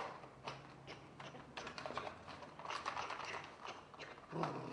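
Faint, scattered clicks and light ticks at uneven spacing, several a second, over a low steady hum.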